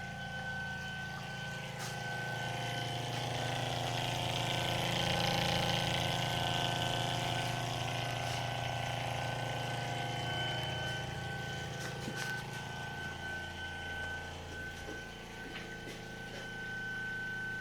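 Small electric liquid pump running steadily, circulating the wash alcohol through the 1 and 0.5 micron filters of the station: a steady hum with a thin high whine, and a hiss of flowing liquid that swells a few seconds in and then eases.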